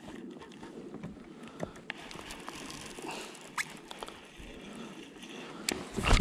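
Scattered small clicks from a baitcasting reel being handled, over water lapping against a kayak. About six seconds in there is a loud, short rush as the rod is swung back for a cast.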